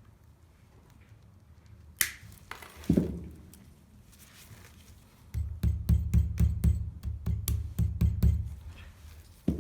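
Hand-tool clicks and knocks on metal: a sharp click, then a heavier knock, then a quick run of about a dozen clicks with dull thuds, roughly four a second, over about three seconds.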